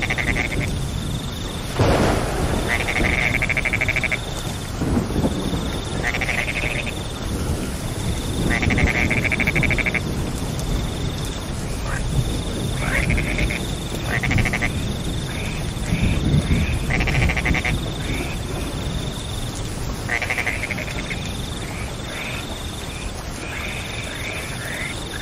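Steady rain with a low rumbling noise underneath, and frogs calling in short pulsed trills every second or two. A high thin note comes and goes above them.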